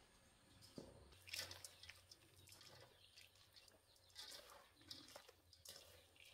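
Near silence with faint, scattered short clicks and ticks.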